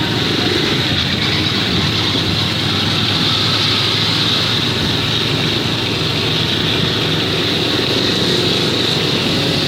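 A motor running steadily under a constant hiss, with no change in pitch or level.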